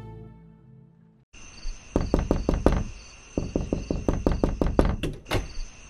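Fast, repeated knocking on a closed door in runs of quick strikes, going unanswered, after background music fades out.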